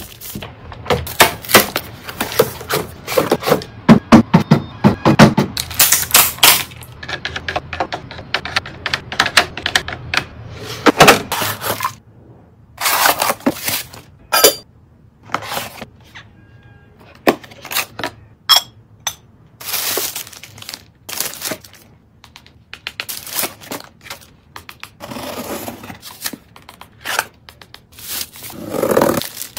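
Items being unpacked and put away: a busy run of clicks, taps and knocks as containers and packaging are handled and set down, with a few short ringing clinks and some rustling.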